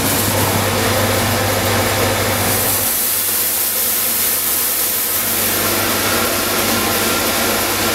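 Coin-operated rice polishing machine running with a steady mechanical drone and hiss. A low hum drops away about three seconds in.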